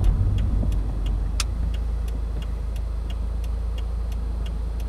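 Turn-signal indicator clicking in the cabin of a 2015 Subaru WRX, about three evenly spaced clicks a second. Underneath is the louder low, steady hum of the engine and road, which eases off about a second in as the car slows.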